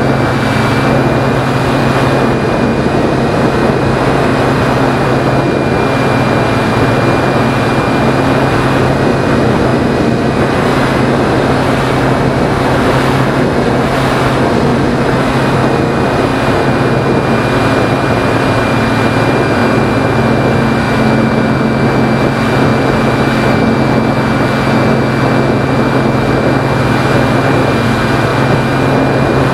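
Phoenix 2000 RC motor glider in flight, heard from on the airframe: its electric motor and propeller running at a steady throttle with a faint high whine over a low drone, mixed with airflow rushing past.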